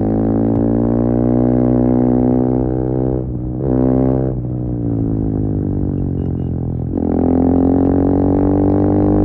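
KTM Duke 390's single-cylinder engine through an Akrapovic slip-on exhaust with the catalyst removed, pulling under load while riding. There is a brief break in the note about three seconds in. It eases off, lower and quieter, from about four and a half seconds, then picks up and pulls again at about seven seconds.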